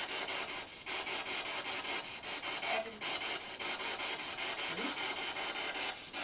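Spirit box scanning through radio stations: a steady rasp of radio static chopped into rapid pulses, with a few brief dips.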